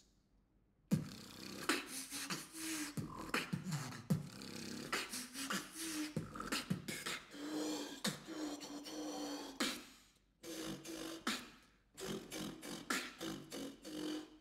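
Solo vocal beatboxing: rapid sharp drum-like clicks and snares over held low sung notes, starting about a second in, with two short pauses near the end.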